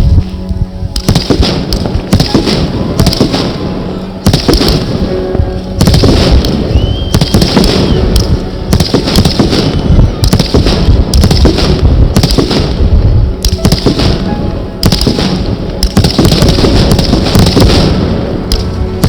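Fireworks salute going off in quick succession: dense bangs and crackling bursts that start abruptly, with a short whistle about seven seconds in.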